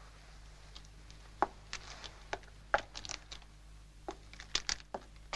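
Scattered, irregular clicks and crackles, starting about a second and a half in, over a steady low hum.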